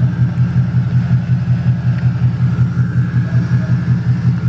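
Ford Mustang GT's 5.0 V8 idling with the hood up, a steady low drone that pulses evenly several times a second.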